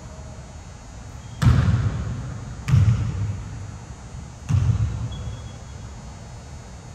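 Basketball bouncing on a hardwood gym floor: three heavy, unevenly spaced thuds, each ringing on in the hall's echo.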